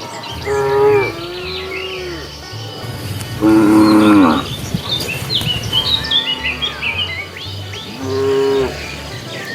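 Cows mooing: about five calls one after another, the loudest about three and a half seconds in.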